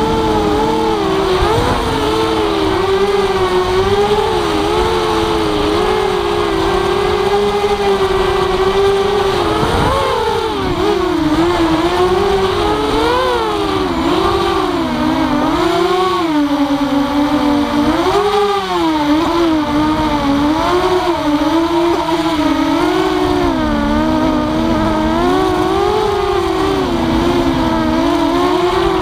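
Brushless motors and propellers of a Walkera F210 racing quadcopter whining in flight. Their pitch rises and falls continually with the throttle, and several motor tones run close together.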